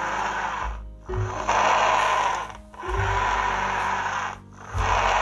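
Plastic toy tracked excavator whirring as it is pushed and pressed, in repeated bursts of about a second and a half with short breaks between them, over background music.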